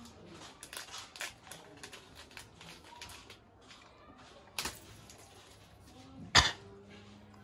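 Clear plastic packaging of a fishing lure being handled and opened: a run of light crinkles and clicks, then a sharp snap about four and a half seconds in and a louder snap about a second and a half later.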